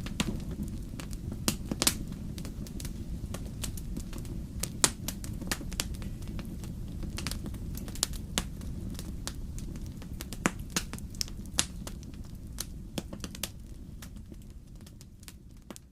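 Wood fire burning in a fireplace: a steady low rumble of flames with irregular sharp crackles and pops, fading out near the end.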